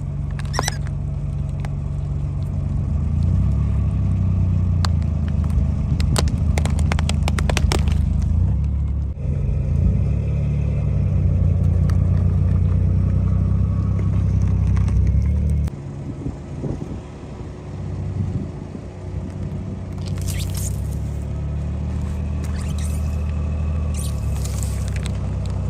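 Car engine running at low speed with a steady low hum, broken by a run of sharp crackling cracks a few seconds in as objects are crushed under the tyres, and later by short scraping bursts.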